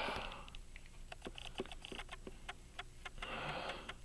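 Small, irregular metal clicks and ticks of tiny pocket-watch parts and tools being handled while a squared arbor is worked into place, with a short hiss at the start and again about three seconds in.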